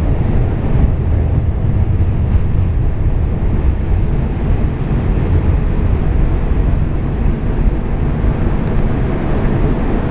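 New York City subway train (2 train) running, a steady loud low rumble with no clear breaks or individual clicks.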